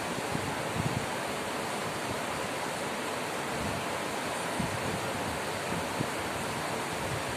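Steady rushing hiss of a tower air cooler's fan running, even and unchanging, with a few faint low knocks.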